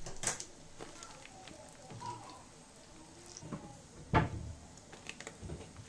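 Kitchen handling sounds: a plastic packet crinkling and a few light clicks, then one sharp knock with a low thud about four seconds in.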